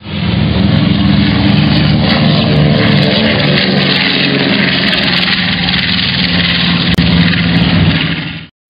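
Propeller aircraft engine running steadily with a low drone, fading out near the end.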